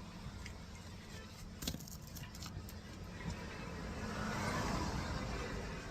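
A steady low rumble with a few faint clicks and a soft hiss that swells near the end.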